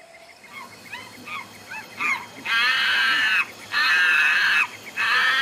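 Zoo animal sound effects: a few short bird chirps, then three long, loud honking animal calls about a second each.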